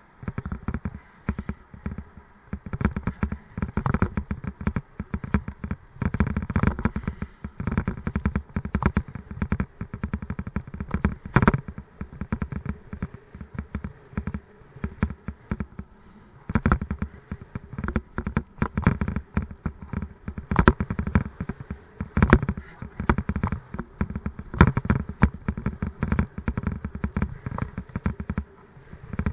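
Raleigh Mustang Elite bicycle rattling and knocking over a rough road surface, picked up by a camera mounted on the bike. The knocks come in irregular clusters, easing off briefly about halfway through and again near the end.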